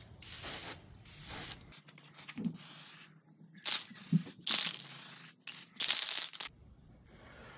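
Aerosol spray can hissing in a series of short bursts, the three loudest in the second half.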